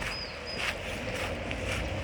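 Footsteps walking at a steady pace, about two steps a second. Three short high bird chirps in the first half second.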